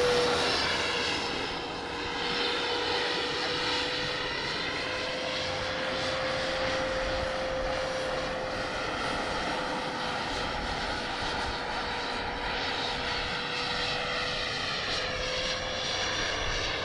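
Radio-controlled scale model helicopter flying overhead: a steady, high, droning whine that drifts slightly in pitch, its sound slowly swelling and fading as the helicopter moves about the sky.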